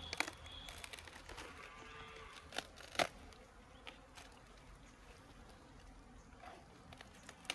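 Faint buzzing of honeybees around a wooden hive box, with a few sharp crackles of dry palm leaf sheath being handled around the middle.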